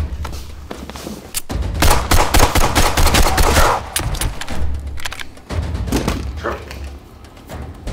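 Pistol gunfire, a string of sharp shots that thickens into a dense flurry about two to four seconds in, then thins out, over a deep low rumble.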